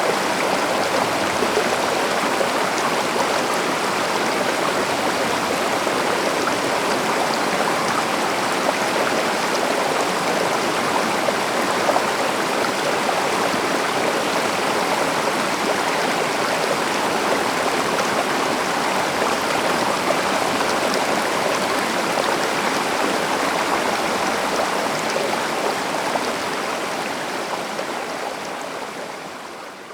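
A river running steadily, a continuous rushing of flowing water, fading out over the last few seconds.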